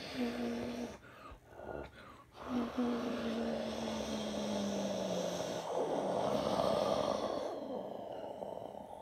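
Airbus A330 airliner passing low overhead on final approach. A steady jet engine noise with a low hum that slides down in pitch as it goes over, loudest about seven seconds in and then fading.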